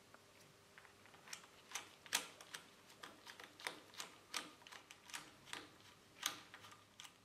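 Irregular sharp metallic clicks, a few a second, from a hex bit driver turning and seating the bolts of a motorcycle flyscreen's fork clamp.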